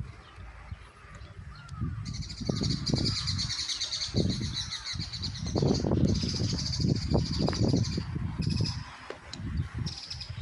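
Outdoor birdsong: a dense, high, rapidly pulsing chatter starts about two seconds in and fades near the end, with crow-like caws among it. Underneath, a low rumble swells and fades in gusts.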